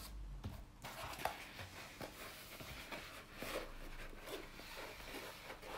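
Paper-like rustling and light crinkling as a rolled diamond painting canvas is unrolled and pressed flat by hand, with small crackles and soft knocks of handling throughout.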